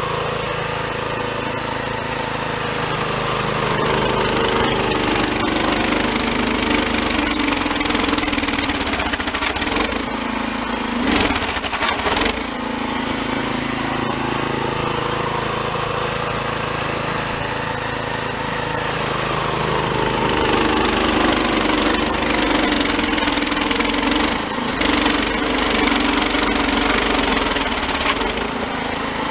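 Toro Snowmaster 724 QXE single-stage snowblower's four-stroke engine running under load as its auger chews through deep, heavy, refrozen snow and throws it. The engine note rises and falls as the load changes, with a brief louder clatter about eleven seconds in.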